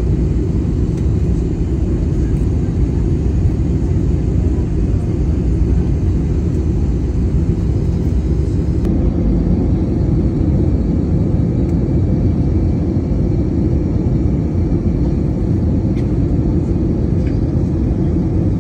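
Steady low rumble of a jet airliner's cabin noise in flight: the turbofan engines and the airflow past the fuselage, with a slight change in tone about halfway through.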